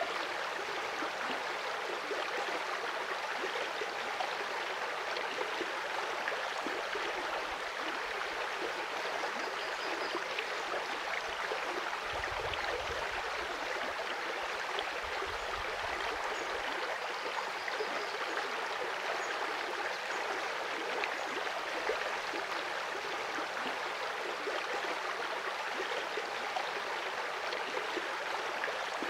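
Small trout stream flowing: a steady rush of running water, with a brief low rumble about twelve seconds in.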